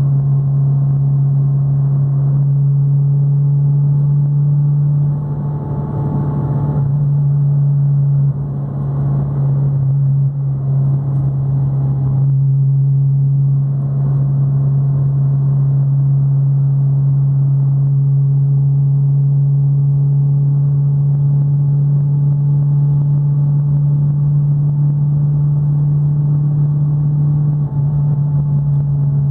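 Fiat Palio's engine and exhaust running at highway cruise, a steady deep drone that dips briefly about five and eight seconds in, then holds even.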